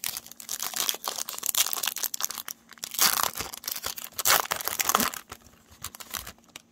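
Silver foil wrapper of a Topps Chrome trading-card pack crinkling and tearing as it is ripped open by hand, with the loudest crackles about three and four seconds in. It dies down over the last second or so as the cards come out.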